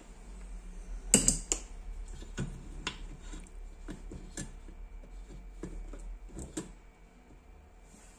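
Handling noise on a workbench: hands moving test leads and the amplifier's finned heatsink. A quick cluster of sharp clicks and knocks comes about a second in, followed by scattered lighter clicks and taps that stop after about six and a half seconds.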